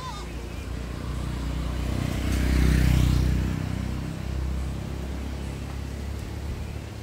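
A motor vehicle's engine running, swelling to its loudest about three seconds in and then easing back to a steady hum.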